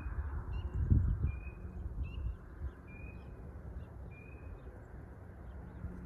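Pond frogs calling: a short, high, slightly rising note repeated roughly once a second. Low rumbling thumps underneath, loudest about a second in.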